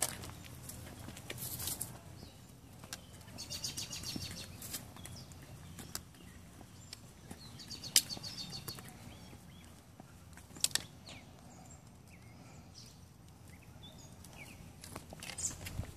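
Scattered light taps and scrapes on a concrete sidewalk from a toddler's sandalled footsteps. There is a short run of rapid ticks about four seconds in, and a sharper tap about eight seconds in.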